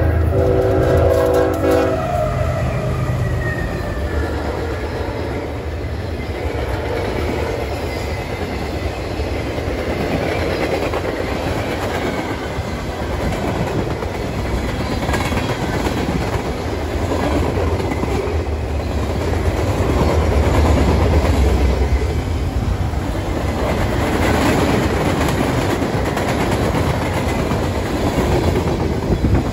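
CSX freight train passing close by. Its diesel locomotive's horn sounds a chord that cuts off about two seconds in. The locomotives rumble past and a long string of freight cars rolls by, steel wheels rumbling and clicking over the rails.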